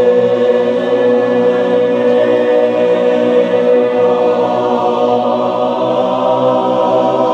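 Barbershop chorus holding one long sustained chord at a steady pitch, as part of a warm-up tuning exercise.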